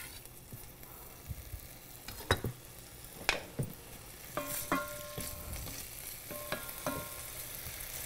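Diced pancetta frying in olive oil in an enamelled cast-iron pot, a steady light sizzle. A few sharp clicks and short ringing clinks sound over it in the middle of the stretch.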